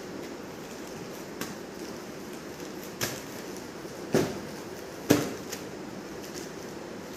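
Steady room hiss with three thumps about a second apart, the last two the loudest, from cotton sarees being handled and set down on a tiled floor.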